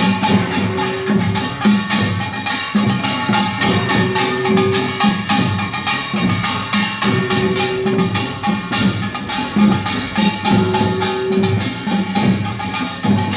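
Korean pungmul percussion band playing a fast, driving rhythm: dense rapid gong and drum strikes, with a held ringing tone that comes back about every three seconds.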